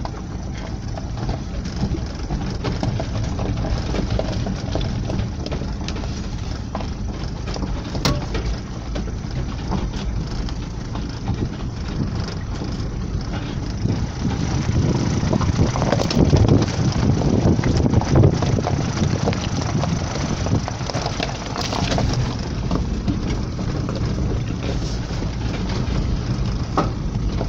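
A car's engine running inside the cabin while the tyres crunch over loose stones on a rough dirt track, with knocks and rattles from the body. It gets louder about halfway through.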